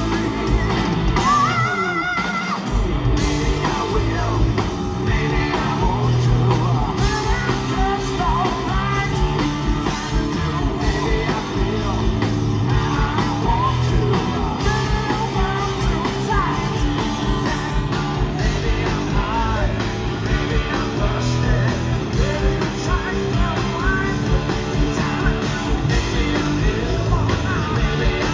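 A rock power trio playing live and loud: electric guitar, electric bass and a full drum kit, with a sung lead vocal. The bass and drums drop out briefly about two seconds in, then the full band comes back in.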